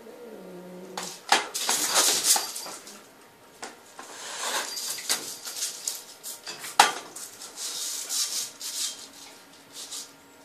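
Metal chain links clinking and rattling in irregular bursts as a cat jumps about on them, loudest between about one and two and a half seconds in, with a sharp clink near seven seconds.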